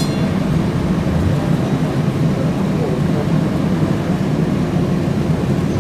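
TTC CLRV streetcar (UTDC/Hawker Siddeley Canadian Light Rail Vehicle) running along the line, a steady low rumble of motors and steel wheels on rail, with a single click at the very start.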